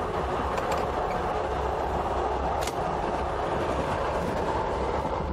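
Passenger train running at speed, heard from inside a carriage: a steady rumble and rush of noise. A couple of faint clicks come about a second in and again near the middle.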